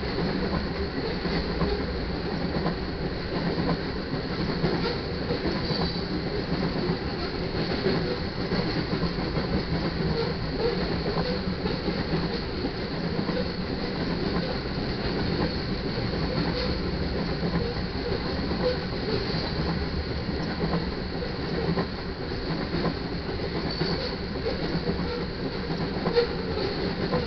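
Freight cars of a manifest train rolling past at a grade crossing: a steady, unbroken noise of steel wheels on the rails as car after car goes by.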